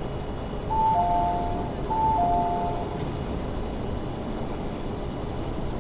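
Two-note descending door chime, played twice, signalling the doors of an MTR West Rail Line train and platform opening, over the steady hum of the stopped train and station.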